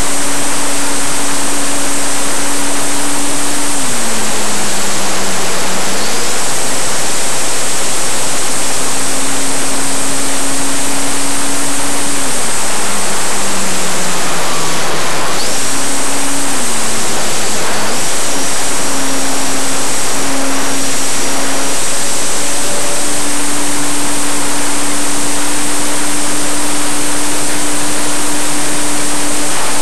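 Electric motor and propeller of a Parkzone RC warbird model in flight, heard from on board under loud rushing wind on the microphone. The propeller hum drops in pitch as the throttle is eased back about 4 s and again about 12 s in, then rises again, and holds steady through the second half, with a faint high motor whine.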